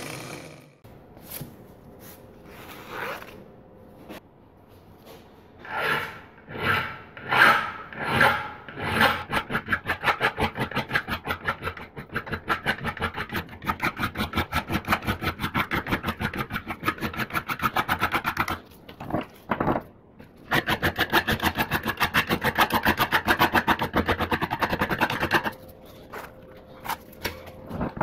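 Round file rasping back and forth across the steel head of a ball-peen hammer held in a vise. A few slow strokes give way to fast, even strokes, with a short pause about two-thirds of the way through and fainter strokes near the end.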